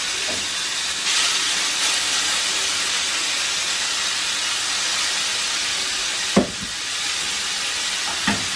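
Marinated chicken tikka pieces sizzling as they are dropped one by one into a very hot non-stick frying pan; the sizzle swells about a second in as another piece goes in. Two sharp knocks from the metal tongs against the pan, the louder one a little after six seconds and a lighter one near the end.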